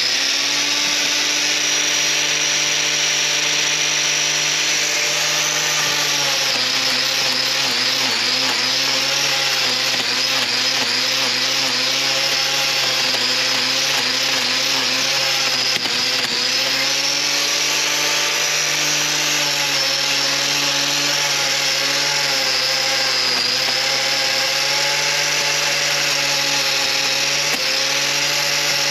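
Angle grinder running continuously with its disc pressed against a cow's claw, grinding down the hoof in a trimming chute. Its whine dips in pitch briefly now and again as the disc bites in under load.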